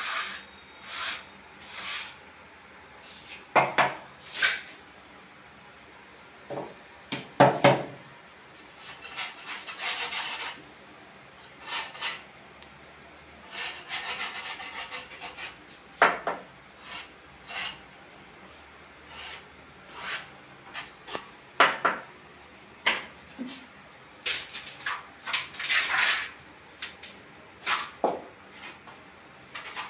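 Irregular scraping and rubbing noises with occasional knocks, coming in short bursts of a second or less, with a longer stretch of rubbing near the middle.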